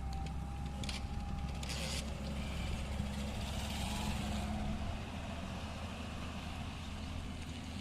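Tata Hitachi excavator's diesel engine running steadily at working speed, with a faint whine and short scraping clatter in the first two seconds; the engine eases off a little about five seconds in.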